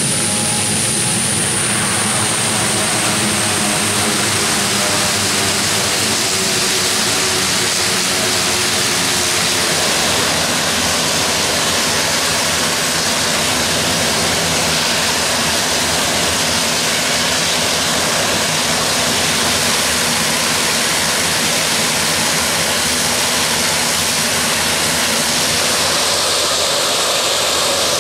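Grumman S-2T Tracker air tanker's turboprop engines running on the ground with propellers turning, while the tanker is hot-loaded with retardant. It is a loud, steady rush of propeller and turbine noise. A high turbine whine sinks slightly and fades over the first few seconds.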